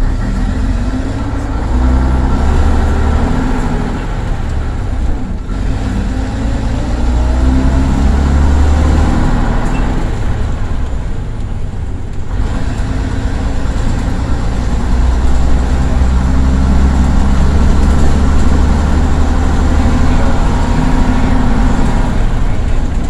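Leyland Titan PD3 double-decker bus's diesel engine heard from inside the saloon as the bus drives. Its note climbs and drops back several times, around a few seconds in and again near the middle, then pulls fairly steadily for the rest.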